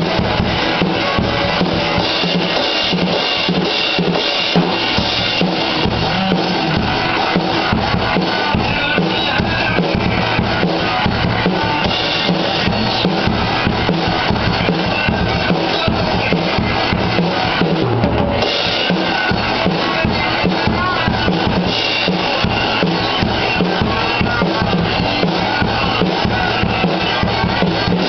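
Drum kit played along to a rock song, a steady beat on bass drum and snare with tom hits, over the recorded song playing underneath.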